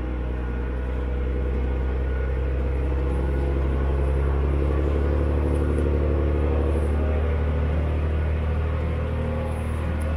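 A heavy machine's engine, likely the homemade forwarder's, running steadily at a constant speed with a low rumble. It swells slightly in the middle and eases briefly near the end.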